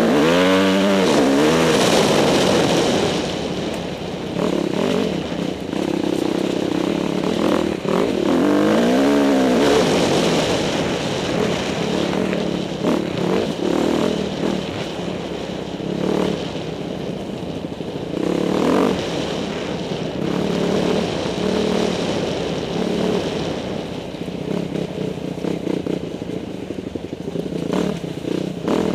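Dirt bike engine revving up and down on the move. The pitch swings sharply near the start and again about eight to ten seconds in, then runs more evenly.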